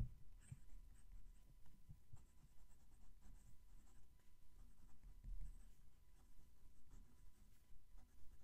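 Broad-nib Narwhal Key West fountain pen writing on Oxford Optic notepad paper: faint scratching, with small scattered ticks as the nib moves through the letters and lifts between strokes.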